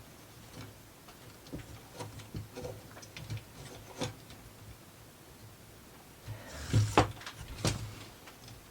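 Wooden plywood model parts clicking and tapping against each other as they are handled and fitted, with a louder cluster of knocks near the end.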